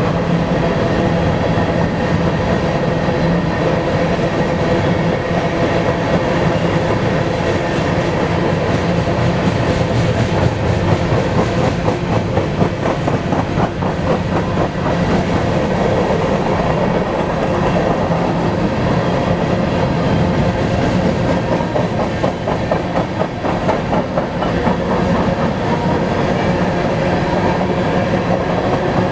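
A freight train of grain hopper cars rolling steadily past: a continuous rumble and rattle of steel wheels on rail, with wheel clicks more distinct about a third of the way through.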